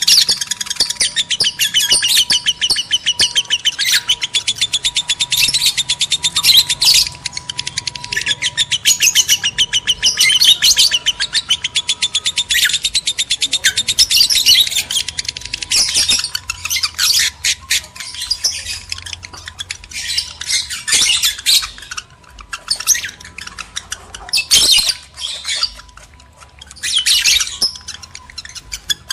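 Lovebirds in breeding condition chattering and screeching in a fast, high-pitched stream of notes, continuous at first and breaking into separate bursts with short pauses in the second half.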